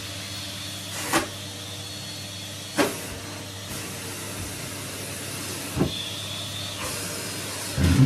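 Henry cylinder vacuum cleaner running steadily, with a hum over a rush of air. Three sharp knocks come about one, three and six seconds in.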